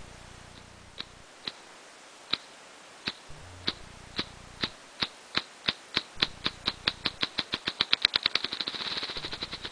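Male ruffed grouse drumming: wing beats about a second apart that speed up steadily into a rapid whir, then stop.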